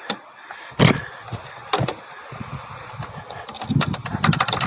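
Two sharp knocks about a second apart, then a low steady rumble.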